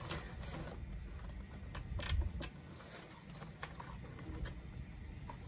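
Scattered light clicks and knocks from handling an electric chainsaw that is not running, with a louder knock about two seconds in, over a steady low rumble.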